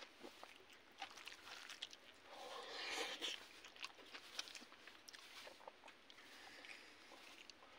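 Faint hand-eating sounds: fingers mixing and squeezing rice in a wooden bowl, with scattered small clicks of chewing. A brief louder hiss rises and falls about three seconds in.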